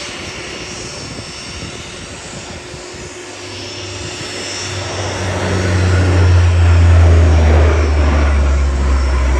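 A Lockheed P-3C Orion's four Allison T56 turboprops flying past with a low propeller hum that grows louder to a peak about seven seconds in. The hum then drops in pitch as the aircraft goes by.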